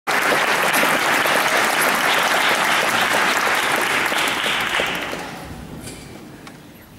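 Audience applauding steadily, the clapping dying away about five seconds in.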